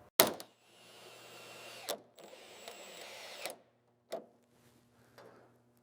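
A small electric motor, such as a power tool's, runs steadily twice for about a second and a half each time. Clicks come at the start, between the two runs and after them.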